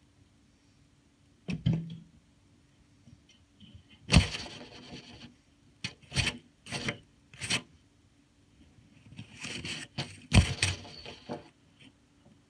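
Irregular scrapes and bumps of handling noise, the phone rubbing and knocking against a coat and hair as it is held close to the face. There are about a dozen short bursts, with the loudest about four seconds in and again near ten seconds.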